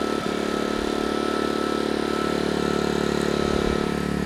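Ryobi RYI2322E 2,300-watt inverter generator's small gasoline engine running steadily just after its first start, pushed on with the electric start. It is not loud, with an even engine note.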